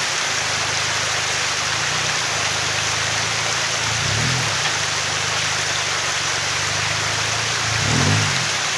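Stream water rushing over rocks, with a Toyota Hilux Surf's engine running at low revs underneath and revving up and back down briefly twice, about halfway through and near the end, as the truck crawls on the boulders.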